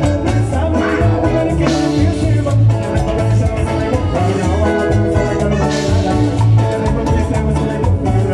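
Live Latin dance band playing loud on stage, with drums, electric guitar and a pulsing bass line keeping a steady beat.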